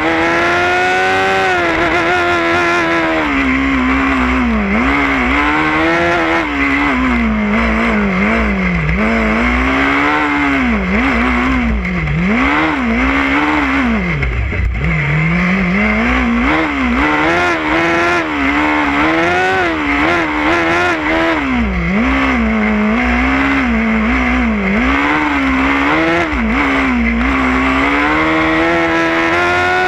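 Formula SAE race car's engine, recorded onboard, revving up and down over and over as the car accelerates and slows through a tight cone course. The pitch drops lowest about halfway through, then climbs again, and rises steadily near the end.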